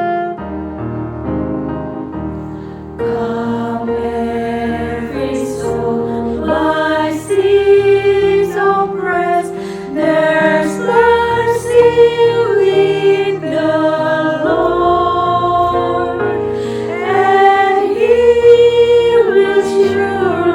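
Gospel vocal group singing a hymn in harmony over instrumental accompaniment, the voices coming in about three seconds in.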